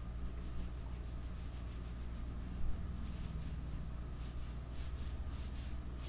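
Pencil drawing on paper: quick, repeated strokes scratching as lines are sketched, over a faint steady low hum.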